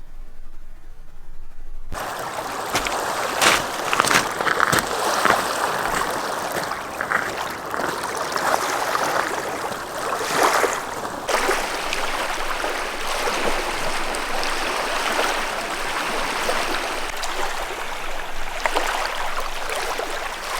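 Running water splashing steadily, starting about two seconds in after a brief quiet moment.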